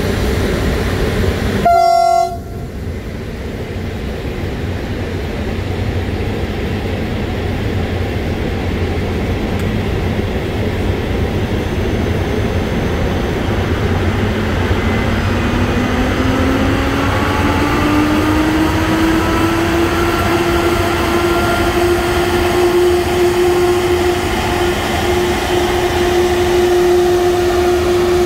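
Transnet class 18E electric locomotive sounding a short horn blast about two seconds in, over a steady machinery rumble, then starting to pull away: from about halfway a whine rises in pitch as it gains speed and then holds steady.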